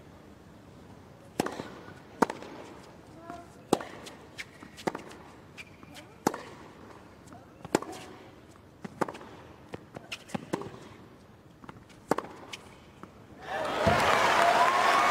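A tennis rally: racquets strike the ball in sharp pops about every second and a half, back and forth. About thirteen and a half seconds in, the crowd breaks into loud applause and cheering as the point ends.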